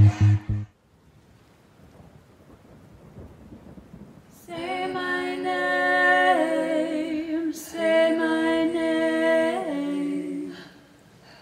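A pulsing electronic music beat cuts off within the first second, leaving a soft, rain-like hiss that slowly swells. About four and a half seconds in, wordless voices come in holding sustained chords, move to a new chord twice, then fade out near the end.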